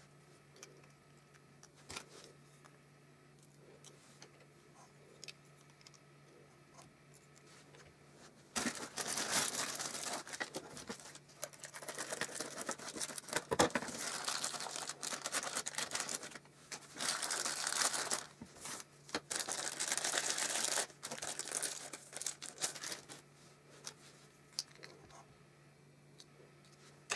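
Tissue-paper wrapping being crinkled and torn by hand in repeated bursts, starting about a third of the way in and stopping near the end. Before and after, there are only a few faint clicks.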